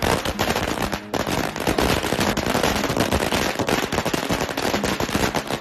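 A long string of Chinese firecrackers going off in rapid, dense cracks, with a brief lull about a second in, then cutting off suddenly near the end as the string burns out.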